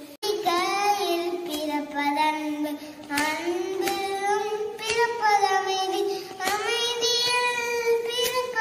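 A young boy singing solo: one child's voice holding long notes that glide up and down.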